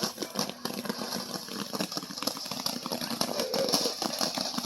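A small fountain firework burning, with a steady hiss and many irregular crackles and pops.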